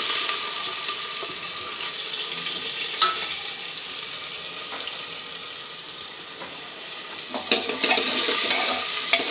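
Chopped onions sizzling steadily as they fry in hot desi ghee with cumin in a pressure cooker on a gas stove, with a few clinks of a spoon stirring about three seconds in and near the end.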